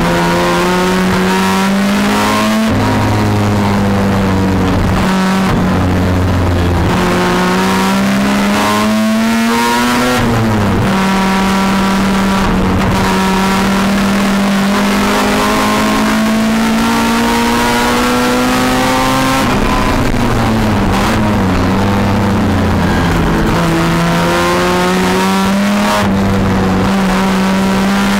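1973 Mazda RX-4's twin-rotor Wankel rotary engine at racing revs, heard inside the cabin, its note climbing through the revs and dropping back at gear changes. The note falls away for braking and downshifts about ten seconds in and again about twenty seconds in.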